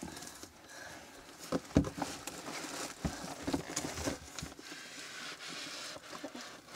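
Rummaging through plastic containers and bags on a shelf: irregular knocks, clicks and rustling, with one louder knock a little under two seconds in.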